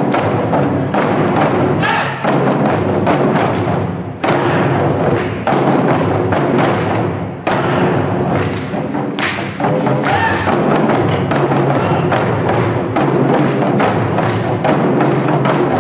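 Japanese taiko drum ensemble playing: a dense, continuous run of heavy drum strikes.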